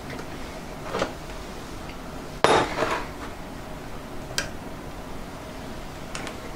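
Hand tap in a T-handle tap wrench being turned to cut a thread in a cast metal flange, giving a few sharp metallic clicks and one louder knock about two and a half seconds in.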